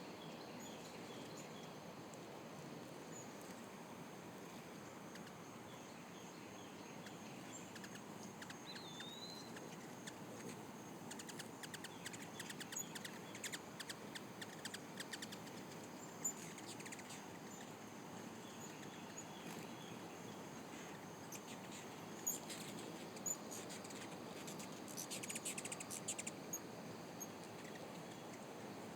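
Hummingbirds chirping around feeders: scattered bursts of rapid, high, thin chips, heaviest about midway and again near the end, over a faint steady hiss.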